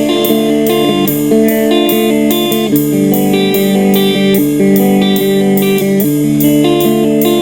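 Instrumental passage of a rock song: electric guitar playing over a steady drum beat, with no singing.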